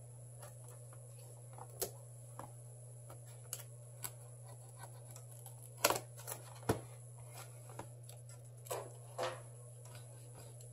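Scattered small clicks and taps of hand tools against a phone being worked on, the loudest about six seconds in, over a steady electrical hum.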